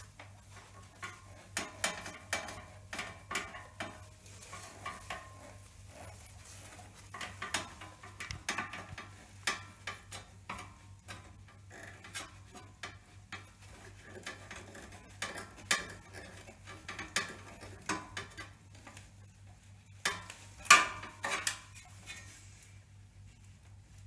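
A 5.5 mm socket wrench unscrewing the display's fixing nuts inside an espresso machine: irregular metal clicks and clinks of the tool on the nuts and chassis, with a louder clatter about three-quarters of the way through.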